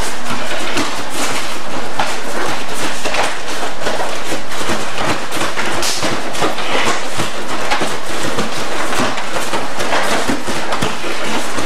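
Rapid, irregular thuds and slaps of several people's bare feet stepping, turning and running on padded mats.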